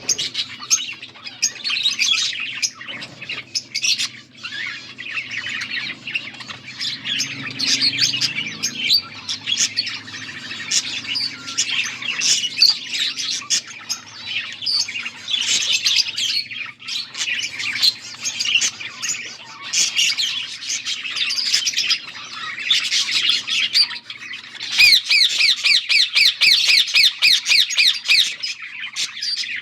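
Budgerigars chirping and chattering without pause, many short calls overlapping. Near the end comes a fast run of repeated chirps, about six a second.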